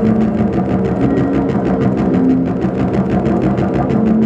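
Improvised electronic music: a fast, even pulsing rhythm, several pulses a second, over low sustained drone tones that shift in pitch.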